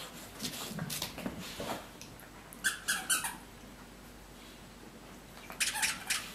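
A boxer puppy playing with a squeaky toy: three short squeaks about three seconds in, between bouts of rustling and scuffling that grow busier near the end.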